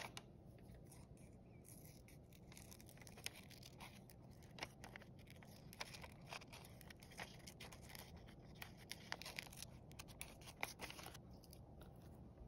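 Scissors snipping slowly through folded paper: faint, irregular short snips, roughly one every second or so.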